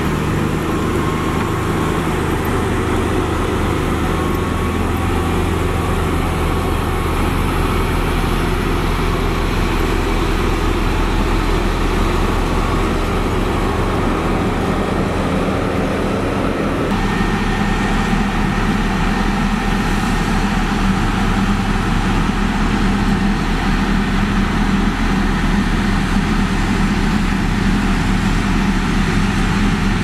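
Heavy diesel engines of earthmoving machines, a motor grader grading loose soil, running steadily. Part-way through, the sound changes abruptly to a different steady engine note, with the grader and a road roller running together.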